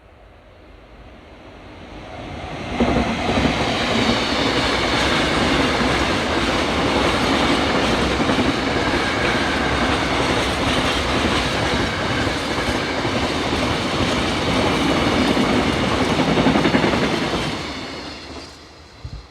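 A Korean passenger or freight train passing close by on the tracks: the sound of its wheels on the rails builds over the first three seconds, stays loud and steady for about fourteen seconds, then dies away near the end as the train goes by.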